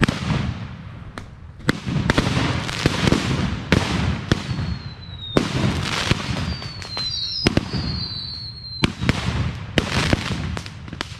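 A burning heap of fireworks going off in a rapid, irregular string of sharp cracks, pops and hissing bursts. Two high whistles shriek through the middle stretch, the first falling slightly in pitch.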